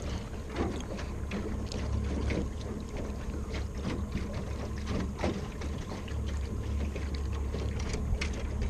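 Small aluminium jon boat moving across choppy lake water: irregular water slaps and splashes against the hull over a steady low motor hum.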